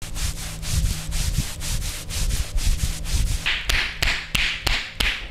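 Massage: hands rubbing briskly back and forth over the body, about five strokes a second. About two-thirds of the way in, this changes to sharp slaps, each followed by a short rub, about three a second.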